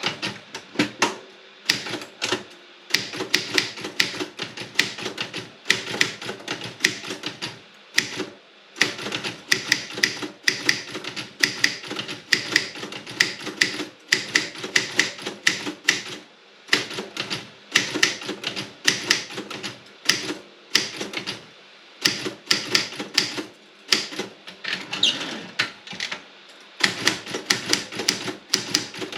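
Typing on a Robotron 24 typewriter: quick runs of key strikes clattering against the platen, broken by brief pauses every few seconds.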